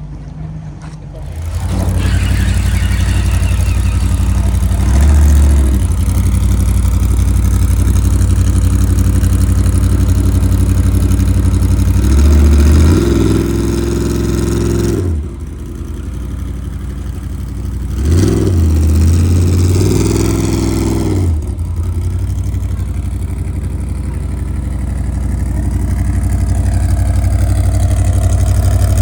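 Off-road race vehicle's engine running loud and close, coming in sharply about a second and a half in. It is revved up and back down briefly several times over a steady idle.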